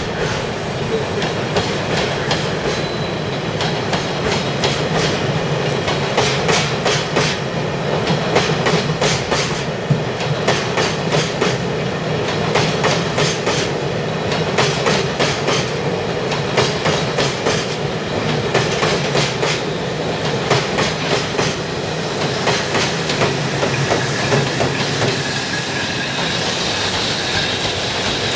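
Empty Taki 1000 oil tank wagons rolling past during shunting, their wheels clacking steadily and repeatedly over the rail joints. A high steady whine comes in near the end, as the electric locomotive at the end of the rake comes by.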